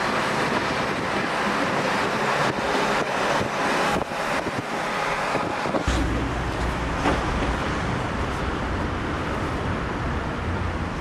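Road and wind noise heard from inside a moving vehicle, a steady rushing; about six seconds in, a deeper low rumble joins it.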